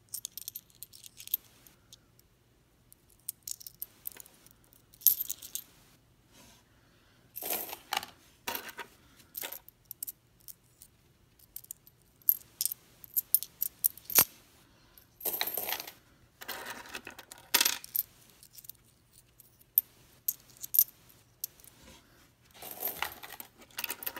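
Lincoln cents clinking against each other in the hand as they are slid apart one by one and checked, in short clusters of metallic clicks with quiet gaps between.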